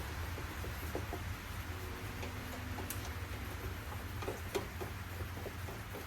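Scattered light clicks and taps of small parts being handled and fitted, over a steady low hum.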